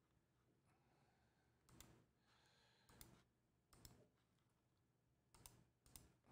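Several faint clicks of a computer mouse, spaced unevenly about half a second to a second apart, against near silence.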